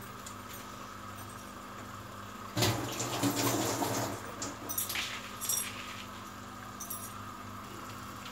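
Raw beef kofta balls coated in yogurt dropped into a pot of hot curry masala: a sudden burst of sizzling about two and a half seconds in, then scattered crackles and spits, over a steady low hum.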